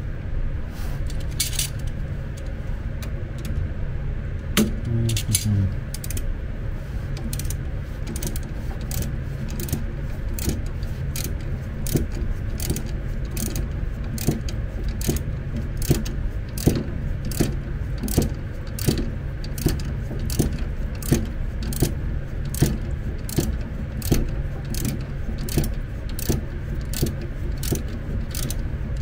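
A wrench undoing a bolt on a power wheelchair's frame: sharp metallic clicks settling into a steady rhythm of about two a second, over a steady low hum.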